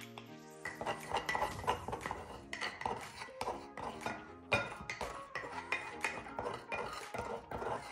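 A metal spoon scraping and clinking against the inside of a bamboo mortar, scooping out crushed garlic paste. It starts about a second in and goes on in quick irregular strokes, with faint background music underneath.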